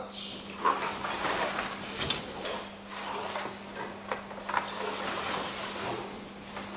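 Rustling of practice uniforms, soft steps on the mats and the slide and knock of katanas being drawn from and returned to their scabbards, with a sharp knock about a second in, over a steady low electrical hum.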